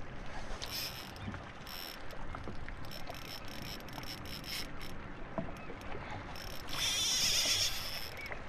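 Water lapping against the hull of a drifting jet ski, with scattered small knocks and several short hissing rushes; the loudest rush comes about seven seconds in.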